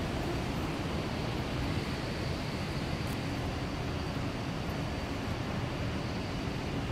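Steady city background noise: a low rumble of traffic and moving air, with a faint high steady whine over it.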